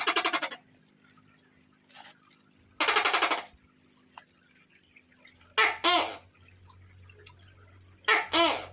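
Tokay gecko calling: a short rapid rattling call at the start and another about three seconds in, then two two-note "to-kay" calls, one past the middle and one near the end.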